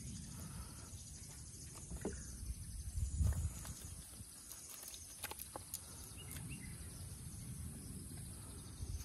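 Wet cast net being pulled and rustled by hand as fish are picked out of it on the grass, with scattered ticks and a dull thump about three seconds in, over a steady high hiss.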